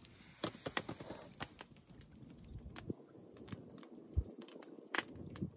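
Campfire crackling: irregular sharp snaps and pops over a faint hiss.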